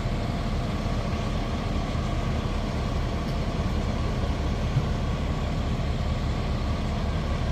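Parked fire trucks' diesel engines idling, a steady low rumble with no let-up.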